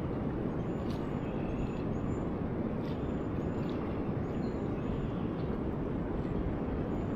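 Steady low rushing noise of the outdoors, even throughout, with faint short high chirps repeating about once a second.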